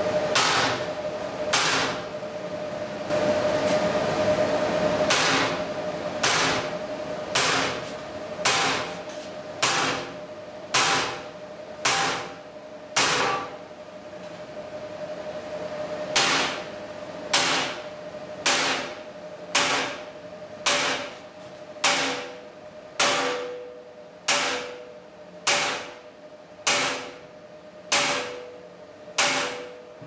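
Steel hammer striking stud-welded shear connectors and pins on a steel plate, bending them over to test the welds. Sharp metallic blows come about once a second, with a short pause midway. The steel table rings on with a steady tone between blows.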